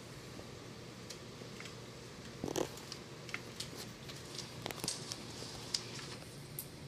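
Classroom room tone: a steady low hum with scattered small clicks and paper rustles as students write. A slightly louder knock comes about two and a half seconds in.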